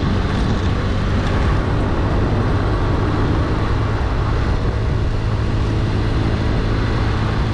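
Motorbike riding along a road: a steady low engine hum under an even rush of wind and road noise, without change.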